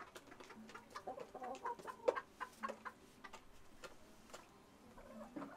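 Domestic chickens clucking in short, quick notes, busiest from about one to three seconds in.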